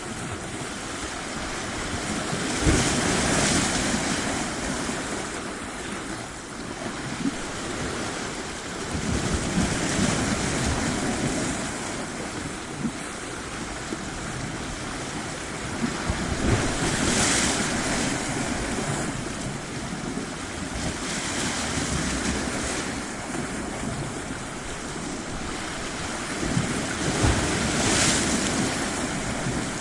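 Ocean waves breaking and washing up on a shore, a steady rush that swells into a louder surge every several seconds.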